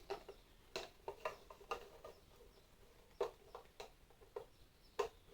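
Scattered light clicks and taps as small interlocking storage boxes are handled and fitted together by hand.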